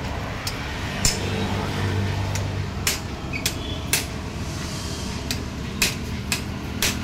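Sharp clicks and knocks of metal tools and tractor parts being handled, a dozen or so at irregular intervals, over a steady low hum.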